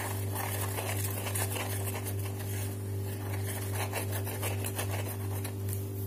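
Soft scratching and small clicks as the nozzle of a bottle of white glue is worked over a cardboard disc, over a steady low hum.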